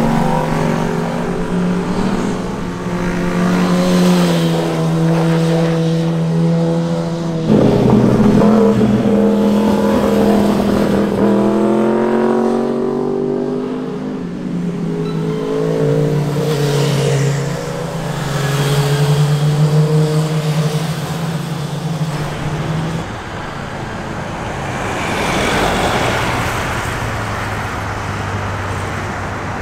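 Sport motorcycles passing one after another, their engines revving up and down as they go by. The engine note changes abruptly about seven and eleven seconds in, where one pass gives way to the next.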